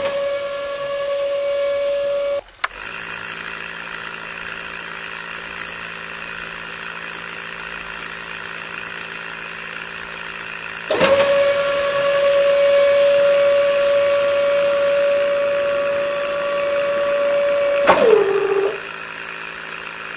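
Small DC motors of a toy borewell drilling rig and its mini water pump running. A steady higher whine cuts off with a click after about two and a half seconds, leaving a lower steady hum. The whine comes back about eleven seconds in, then winds down with a falling pitch after another click near eighteen seconds.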